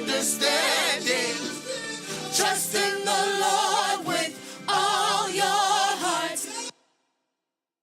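Gospel choir singing with strong vibrato over steady low sustained tones. It cuts off abruptly into dead silence near the end.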